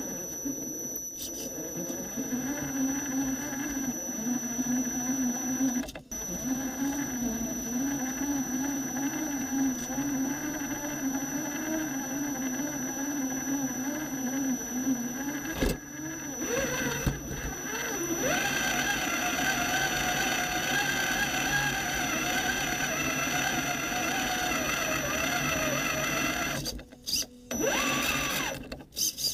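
Electric motor and gearbox of an Axial SCX10 Honcho 1/10 scale rock crawler whining as it drives, heard from a camera inside its cab. The whine wavers in pitch with the throttle, shifts to a higher, steadier whine about two-thirds of the way through, and cuts out briefly twice near the end, over a thin steady high whistle.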